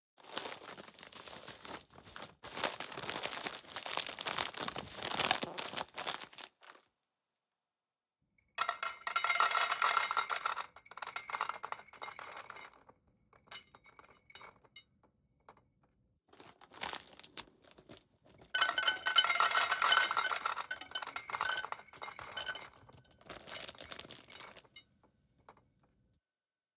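Dry cat food clattering into a bowl, pellets clinking and making the bowl ring, in two loud stretches of a few seconds each. Before them comes a softer crackling, rustling stretch of about six seconds, with short scattered clinks between the stretches.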